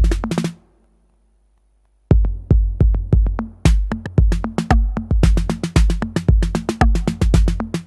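Behringer RD-8 analog drum machine, an 808 clone, playing a minimal electro beat with deep booming kicks and sharp higher hits. The pattern cuts out about half a second in and leaves a gap. The beat drops back in with the kick around two seconds in, and fast high percussion joins around five seconds in.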